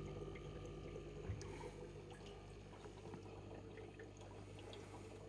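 Faint steady hum and trickle of aquarium water, with scattered small ticks and one soft knock about a second in, as metal feeding tongs work at a piece of food on the tank bottom.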